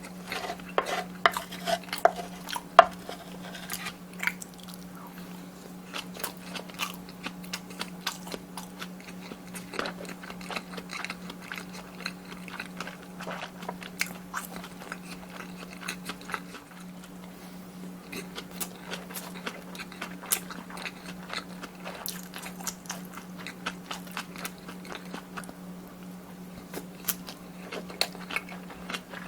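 Close-up chewing and crunching of kimchi fried rice, with short clicks of a spoon against the dish, busiest in the first few seconds. A steady low hum runs underneath.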